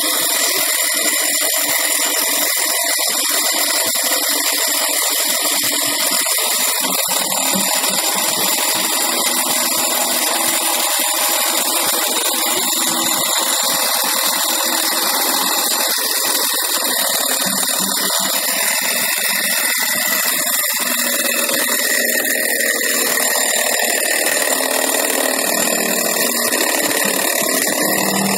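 Electric motor of a tennis ball collector running continuously, spinning the drum wheel that picks up the balls: a steady mechanical whine with several fixed high tones. A low steady hum comes in near the end.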